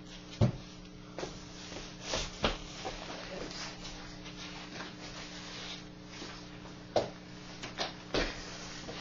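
Scattered knocks, clicks and rustles of a person moving about and handling objects on a desk, over a steady low hum.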